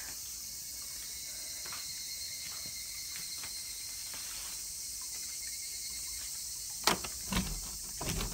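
Steady high-pitched insect buzz. Near the end come a few sharp clicks and knocks as the front door of an abandoned house is tried; it is locked and does not open.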